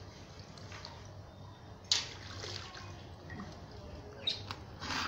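Live mud crabs shifting in a plastic tub: a few sharp clicks and scrapes of shell and legs against one another and the tub, the loudest about two seconds in, over faint background noise.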